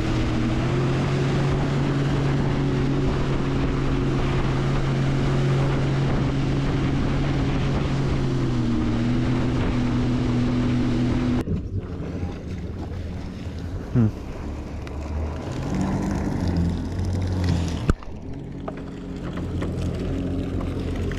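Sea-Doo personal watercraft's engine running steadily at cruising speed, with water rushing off the hull and wind on the microphone. About halfway through it cuts to a quieter engine at low speed, with a brief falling whine.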